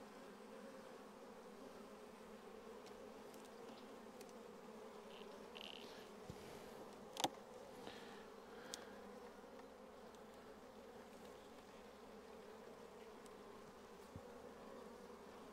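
Faint, steady hum of honeybees from an open hive. About seven seconds in there is one sharp knock, with a couple of lighter clicks close by, as frames are handled in the wooden hive.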